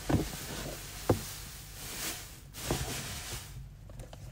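Rustling of shredded paper packing filler as items are handled in a gift box, with two sharp knocks of plastic being set down or picked up, one at the start and one about a second in.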